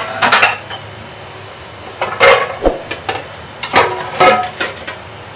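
Several short knocks and clinks of kitchen utensils and cookware handled around a steel wok, over a faint steady high whine.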